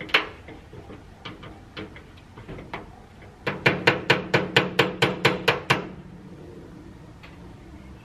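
Sheet-metal chimney pipe being knocked: a few scattered taps, then about halfway in a quick run of about a dozen sharp metallic strikes, about five a second, lasting a couple of seconds.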